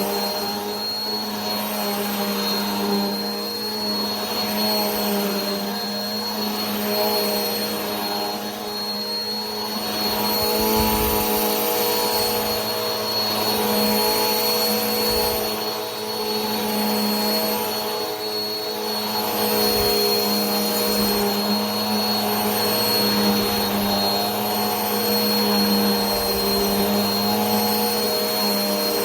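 Vacuum cleaner motor running steadily: a continuous drone with a high whine and rushing air hiss, swelling slightly every few seconds.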